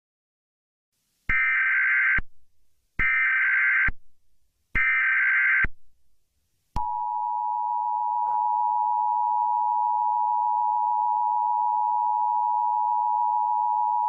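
Emergency Alert System tones: three short bursts of the SAME header's data screech, about a second each with short gaps, then the two-tone EAS attention signal, a steady piercing tone that starts about seven seconds in and holds.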